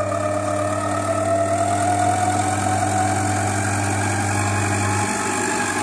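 Monsieur Cuisine Plus kitchen machine's motor running its kneading program, the blade working flour, salt and milk into dough: a steady hum with a slowly rising whine.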